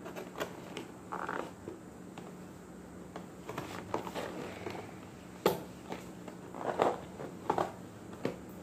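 Fingernails picking at and peeling packing tape on a cardboard toy box: scattered short rustles, scrapes and crinkles, with a sharp click a little past halfway.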